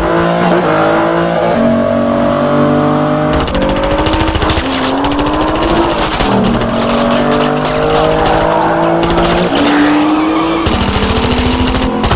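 Car engines revving hard at high speed, their pitch climbing and then dropping sharply at each gear change, several times over.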